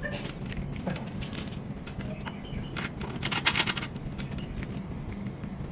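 Light metallic clicks and rattles of a round metal cable connector being pushed into and twisted onto the front-panel socket of a ZKETECH EBC-A40L battery tester, in a few short clusters.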